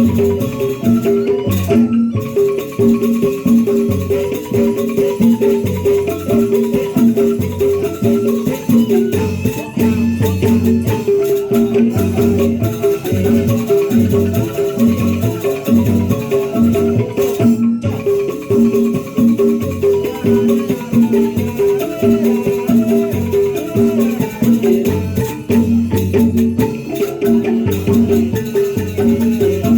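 Mallet percussion ensemble music: struck bars playing a fast, steadily repeating pattern with a rattling layer over it.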